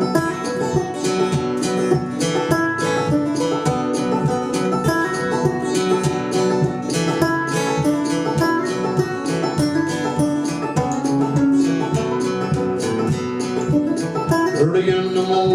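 A band playing an instrumental passage, with acoustic guitar picked in quick plucked notes to the fore and no singing.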